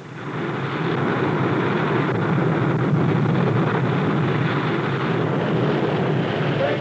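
Steady rushing sound effect of a submarine underway, swelling over the first second and then holding even, with no distinct tones.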